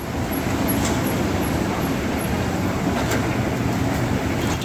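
Steady low roar of the gas burner under a karahi wok heating oil.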